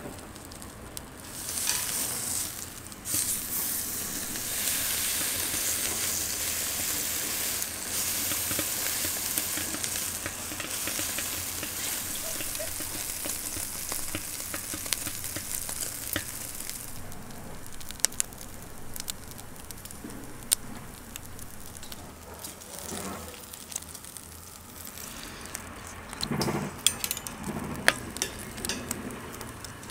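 Thick pork rind sizzling loudly on a hot rebar grill under a flat steel press, the sizzle surging about a second and a half in and easing after about seventeen seconds. In the quieter second half come sharp metal clicks of tongs and scissors against the rebar grill as the grilled skin is cut, with a few dull thuds near the end.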